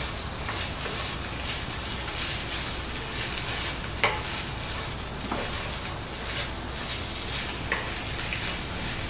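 Chorizo with freshly added chopped onion, carrot and celery sizzling steadily in its own fat in a hot Dutch oven as it is stirred in. There are a few brief knocks of the stirring utensil against the pot.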